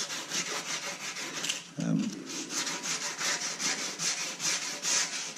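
Sandpaper being rubbed by hand back and forth over the spray-putty-coated pressed-steel mower deck, about four scratchy strokes a second.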